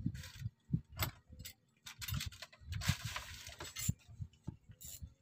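Clicks, clinks and knocks of fishing tackle being handled as a rod with a spinning reel is picked up, with a longer rasping stretch about two to four seconds in.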